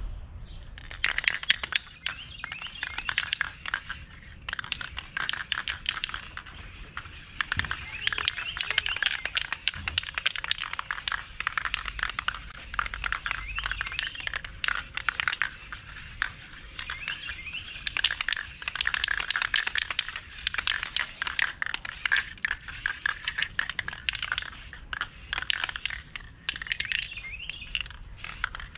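Aerosol spray can of maroon paint hissing in many short bursts as a guide coat is dusted onto primed car bodywork.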